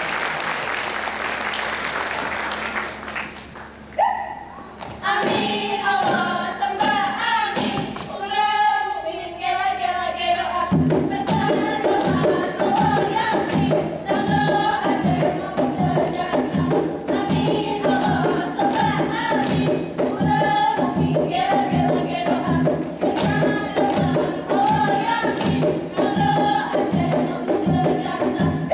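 Applause dies away, then a lead voice starts a chant about four seconds in and the Saman dancers answer in unison singing. About ten seconds in, fast rhythmic clapping and body slapping join under the group chant and keep on at a steady driving pace.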